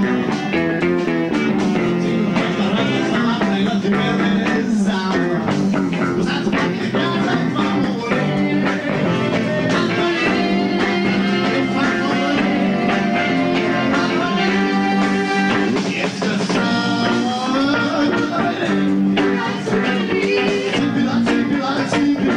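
Rock band playing live: electric guitar, electric bass and a Tama drum kit.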